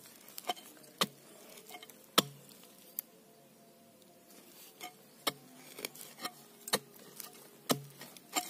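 A long-handled narrow digging spade jabbed down into hard soil and tree roots: about eleven sharp, uneven knocks, the loudest about two seconds in, with a pause in the middle.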